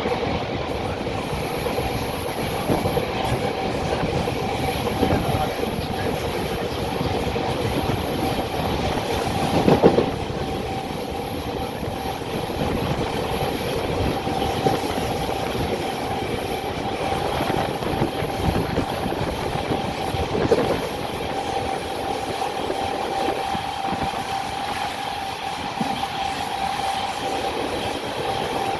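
Passenger train running along the track: a steady rumble of wheels on rails with a steady whine, and a louder knock about ten seconds in and again about twenty seconds in.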